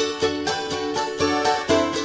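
Background music: a quick, even run of plucked string notes.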